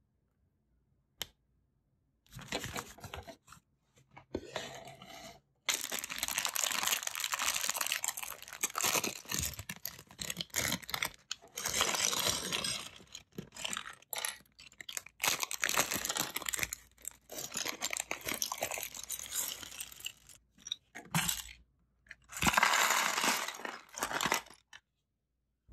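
Plastic bag of Lego bricks crinkling and rustling as a hand rummages in it, in stretches of several seconds with short breaks, starting about two seconds in.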